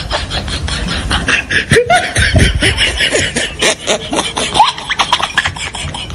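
A group of people laughing and chatting over one another, with short bursts of laughter and a steady clatter of clicks underneath.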